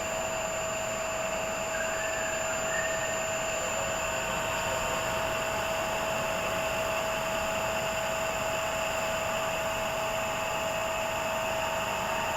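Three-phase induction motor on a star-delta starter running steadily, a constant hum with a steady whine over it: the abnormal motor noise being complained of.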